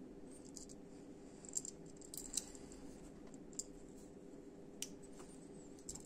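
Handmade Soviet aluminium-handled folding knife clicking as its blade and lock are worked by hand: a handful of light metallic clicks, the sharpest about one and a half and two and a half seconds in, over a faint steady hum.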